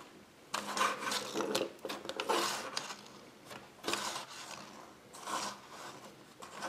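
Small plastic toy pushed and scraped across a tabletop by hand: about five short scratchy rubbing sounds.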